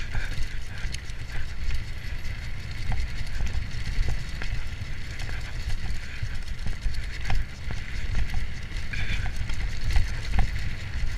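Mountain bike riding downhill on a rough dirt trail, with wind buffeting the microphone in a steady low rumble and hiss, and the bike rattling and clicking over bumps throughout.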